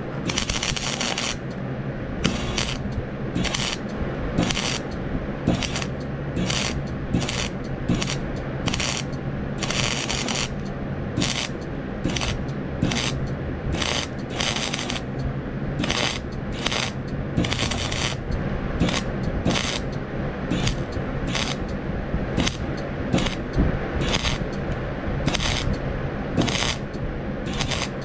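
Arc welder crackling in short stop-start bursts, roughly one a second, as quick stitch welds bridge the thin steel of a rake's tines, with a steady low hum underneath.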